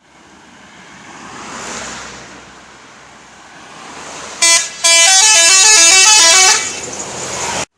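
Indonesian bus 'telolet' horn: a short first blast, then a multi-tone air horn playing a quick stepping tune for about two seconds. Vehicle noise swells and fades before it, and the sound cuts off suddenly near the end.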